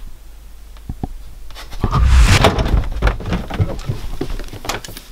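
Handling noise from a handheld camera and its top-mounted microphone being moved about: rustling, deep rumbles and knocks, starting about a second and a half in and loudest about two seconds in.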